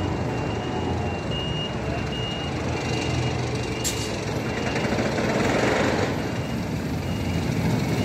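Reversing alarm on a construction vehicle beeping over and over, a high single-tone beep repeating steadily, over the low rumble of site machinery engines. A rush of noise swells and fades around the middle.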